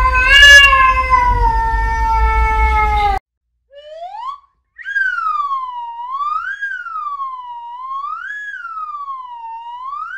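Domestic cat giving a long, loud yowl that slowly falls in pitch, cut off about three seconds in. After a short gap, a clean wailing tone rises and falls evenly about every two seconds, like a siren.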